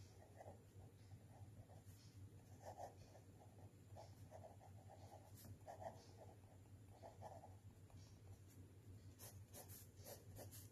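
Faint scratching of a black felt-tip marker writing on paper, stroke by stroke. Near the end come a few quicker, sharper strokes as words are underlined.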